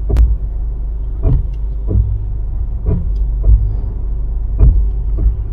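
Volkswagen Taigun 1.0 TSI automatic at low speed, with a repeated sharp 'kach kach' knocking from the brakes, about once a second at uneven intervals, over a low rumble. The owner takes it for a brake-noise defect of the car's 1.0-litre automatic, heard whenever the car is slowed or stopped at low speed.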